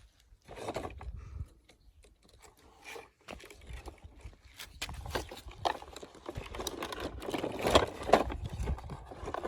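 Toy cars being handled and pushed across a surface: irregular clicks, knocks and scraping, sparse at first and busier and louder in the second half.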